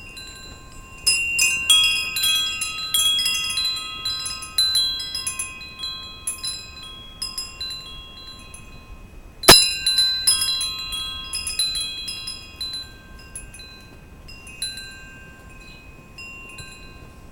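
Wind chimes ringing in gusty wind: a flurry of overlapping ringing tones from about a second in, thinning out, then a loud clash about halfway through and a second flurry that dies away to scattered chimes near the end.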